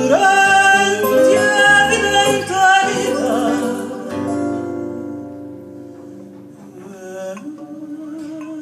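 A woman's singing voice holds and bends a phrase for about three seconds over Portuguese guitar and classical guitar. The two guitars then play on alone, growing softer.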